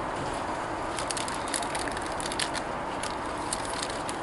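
Thin plastic bag crinkling and crackling in quick, irregular clusters as a model locomotive is pulled out of it by hand, over a steady background hiss. The crackles are densest from about a second in until near the end.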